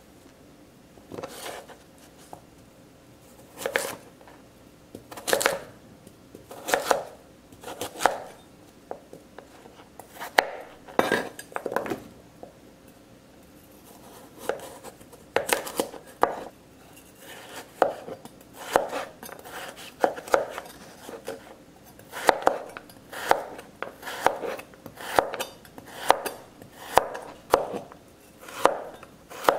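Chef's knife slicing through raw taro and carrot and knocking on a plastic cutting board, one cut after another, about one a second and closer together in the second half.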